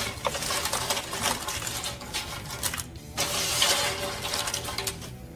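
Crisp fried tortilla chips rustling and crackling as they are slid off a metal baking sheet into a skillet of hot salsa verde, in two pours with a short pause about three seconds in.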